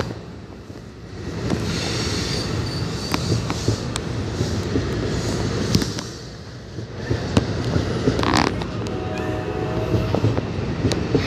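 NJ Transit MultiLevel bilevel passenger coaches rolling slowly past close by: a steady low wheel rumble with sharp clicks from the wheels over the rail joints, and a short screech about eight seconds in.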